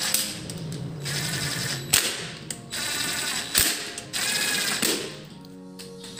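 Cordless DeWalt 18 V drill-driver spinning a socket onto the main bearing cap bolts of an engine block. It runs in four bursts of a second or less, each a fast rattling whir, with short pauses between them.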